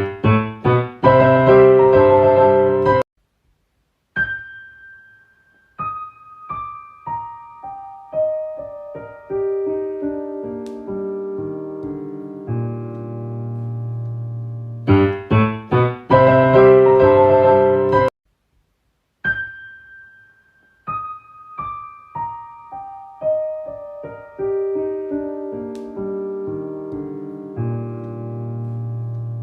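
Solo piano music. A burst of rapidly struck chords breaks off into a short silence, then single notes step slowly downward; the whole phrase plays twice.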